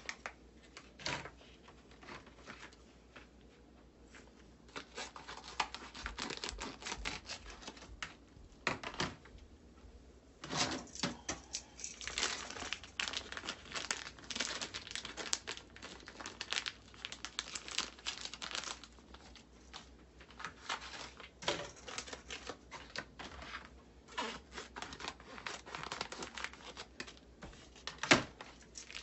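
Thin plastic food pouches crinkling irregularly as hands handle and open them, with a sharp knock near the end.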